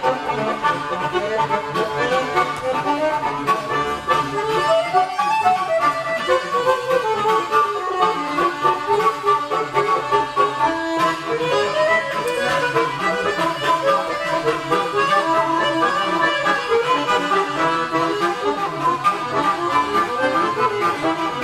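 Bulgarian folk tune played live on kaval and button accordion. The kaval plays quick melodic runs that rise and fall over the accordion's chords.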